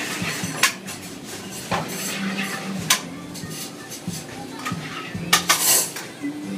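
Kitchen utensils knocking and clinking against pans and dishes during cooking, as a few separate sharp clinks.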